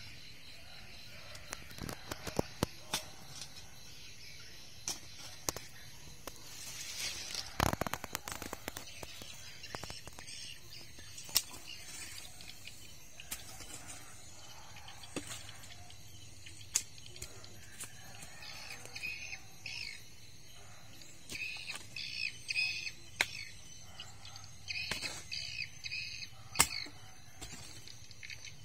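A hand hoe chopping into hard, stony soil: scattered sharp strikes and scrapes at an uneven pace. In the second half, short high chirping calls come in quick clusters.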